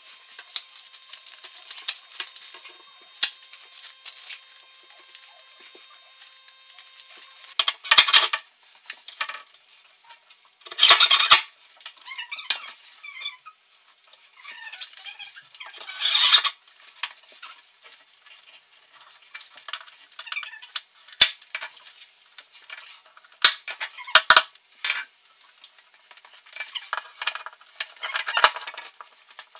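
Scattered clicks, light clinks and scraping rustles of hands working small metal fittings and cable inside a wooden cabinet, with a few louder scrapes of about a second each.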